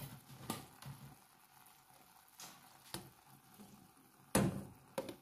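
A few faint clicks, then about four seconds in a plastic cutting board knocks and scrapes against the rim of a stainless steel pot as chopped tomatoes slide off it into the pot.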